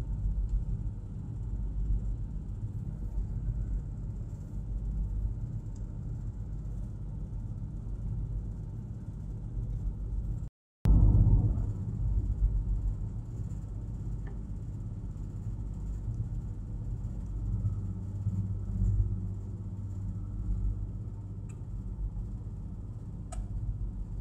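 Steady low rumble of a Soviet-built hydrofoil's diesel engines and hull running at speed, heard from inside the passenger cabin. The sound cuts out for a moment about ten seconds in, then resumes.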